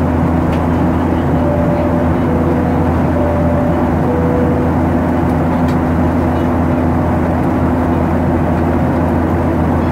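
Steady cabin noise of a Ryanair Boeing 737-800 in its climb: the engines' drone and the rush of air over the fuselage, with a constant low hum underneath. A few short faint tones alternate between two pitches about two to four seconds in.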